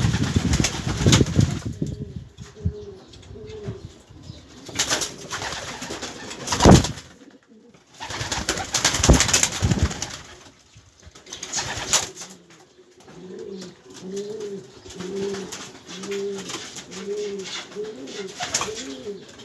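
Domestic pigeons cooing, a run of short low coos repeating about once a second through the second half. Earlier there are rustling bursts and one sharp knock about six and a half seconds in, the loudest sound.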